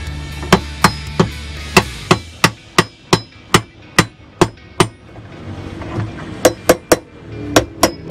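Repeated sharp knocks of a metal tool striking the hub at the centre of a top-load washer's tub, two or three a second, with a pause of about a second and a half midway. A low steady hum underneath stops about two seconds in.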